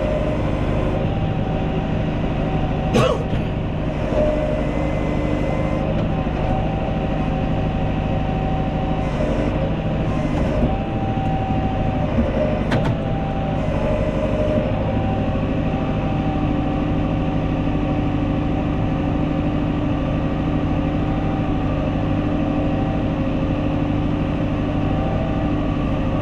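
Tractor engine running steadily, its pitch shifting a little as it works, with a couple of sharp knocks.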